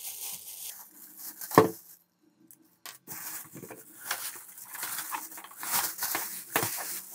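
Clear plastic wrapping crinkling and rustling as it is pulled off a wall-mount fan's motor and bracket, with one sharp knock about a second and a half in.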